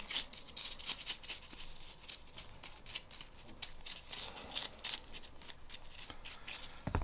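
Scrubbing a Glock pistol part with solvent, a quick irregular run of short, scratchy strokes.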